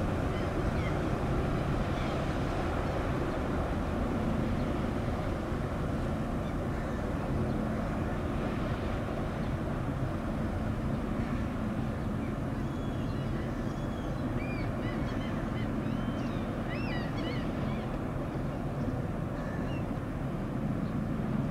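Car ferry Fosen's diesel engines and propulsion running with a steady low rumble and hum as the ferry manoeuvres. A few short high chirps come over it in the second half.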